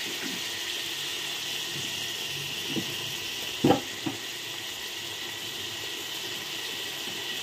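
Chopped onions, tomatoes and spices sizzling steadily in hot oil in a pot, with a few short knocks near the middle.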